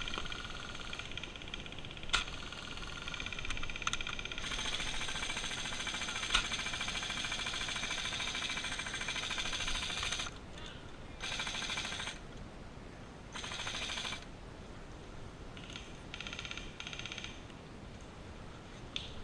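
Airsoft electric rifles firing in full-auto bursts: a long rapid rattle of several seconds, then shorter bursts that start and stop abruptly. A couple of sharp knocks sound over it.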